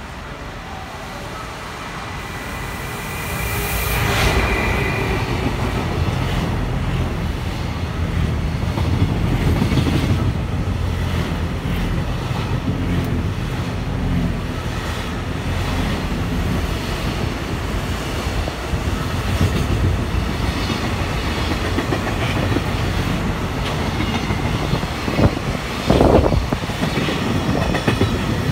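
JR Freight container train hauled by an EF210 electric locomotive passing close by. The rumble swells over the first few seconds as it arrives, then the wagons run past steadily with a regular clicking of wheels over the rail joints and a sharper clatter near the end.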